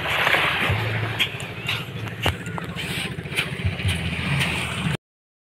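A steady low engine hum under wind-like noise and scattered light clicks, cutting to silence about five seconds in.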